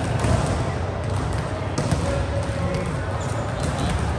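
Volleyballs being hit and bouncing on a hard gym floor: scattered sharp impacts that echo in a large sports hall, over a steady background of voices.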